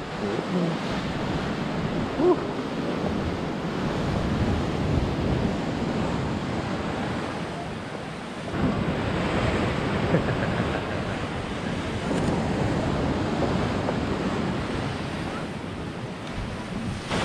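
Wind rushing over the microphone on an exposed sea cliff, mixed with the surf of the sea below: a loud, steady rushing noise that swells and eases, dipping briefly about halfway through before picking up again.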